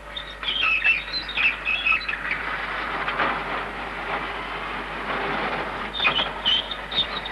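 Machinery running with a steady clattering noise and high metallic squeaks, the squeaks bunched near the start and again near the end.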